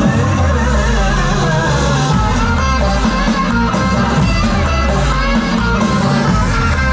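Loud music with a heavy bass beat and a wavering melody line over it.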